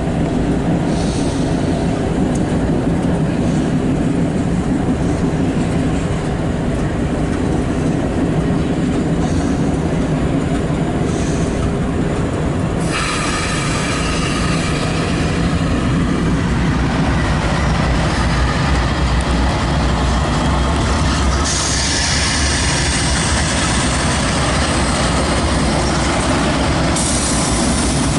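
Empty autorack freight train rolling past, with a steady rumble of wheels and cars. A high, hissing wheel squeal comes in about halfway through and grows louder a few seconds later.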